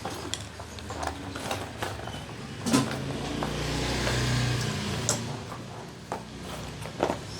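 Scattered clicks and knocks of metal parts and tools being handled, with a low rumble that swells and fades in the middle.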